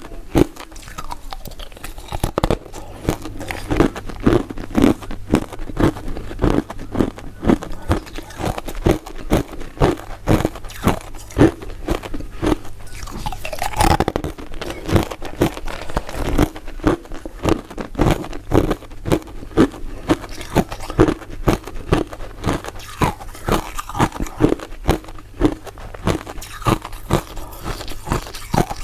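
Close-miked crunching and chewing of crisp crystal ice dessert pieces, with sharp crunches repeating about twice a second as the bites are chewed.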